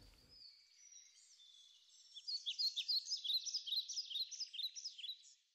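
Small bird twittering: a quick run of high, thin chirps starting about two seconds in and stopping just before the end.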